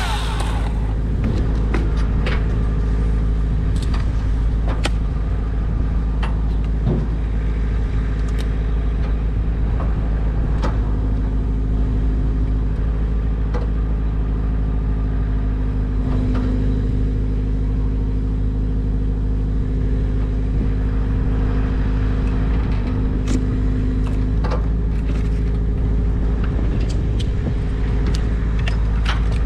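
An engine running steadily at idle, a low even rumble with a few light clicks and knocks scattered through it.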